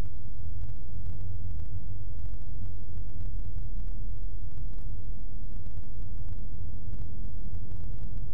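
Steady low rumble of a car driving at road speed, its road and engine noise heard inside the cabin through a windshield dashcam's microphone.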